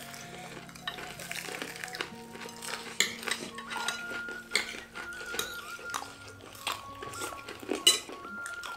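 Spoons and forks clinking and scraping on ceramic plates and bowls during a meal, in short irregular clicks, the loudest near the end. Background music with sustained tones plays underneath.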